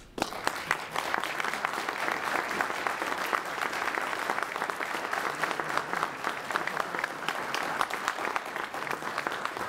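A large audience applauding, the clapping breaking out all at once and holding steady.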